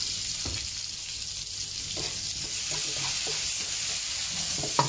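Chopped garlic and onion sizzling steadily in hot oil in a wok, with a spatula stirring them and making a few light scrapes.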